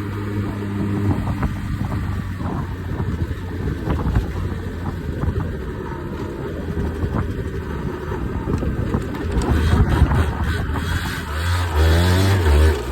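Beta RR 50's 50cc two-stroke single-cylinder engine running off road, rough and uneven through the middle, then revving up strongly in the last few seconds.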